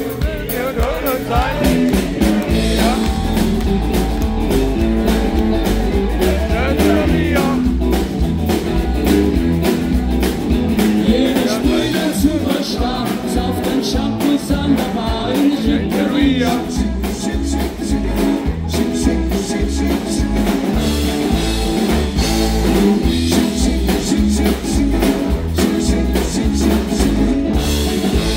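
Live rock-and-roll band playing loud through a PA: electric guitars, bass and drums keeping a steady beat, with a saxophone in the band.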